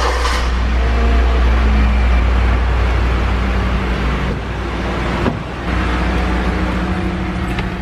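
A car engine idling, a steady low rumble heard from beside the car, with a sharp click about five seconds in as the car door is opened.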